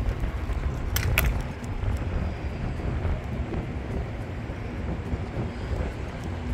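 Two sharp clacks about a second in, a quarter second apart: the Evzones' hobnailed tsarouchia shoes striking the marble during their slow ceremonial march. Under them runs a steady low rumble of city traffic and wind on the microphone.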